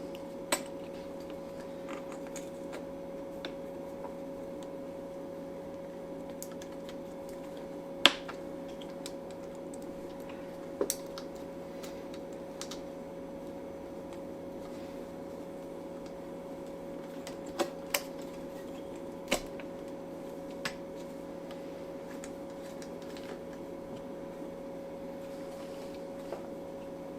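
Scattered light clicks and taps from hands and parts on a Ducati 848 engine as its horizontal timing belt is worked onto the pulleys, the sharpest about eight seconds in. A steady background hum runs underneath.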